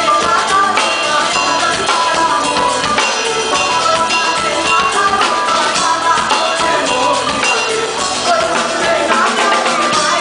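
Live band playing: a drum kit with cymbals and snare hits driving the groove, under a woman singing and a sitar. The band stops right at the end.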